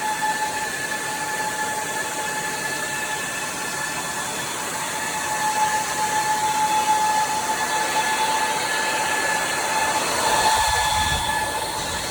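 Cooling fans of a Supermicro 2027GR-TRF GPU server running at high speed: a steady rushing whoosh with a high whine at two pitches, and a brief low rumble about ten seconds in.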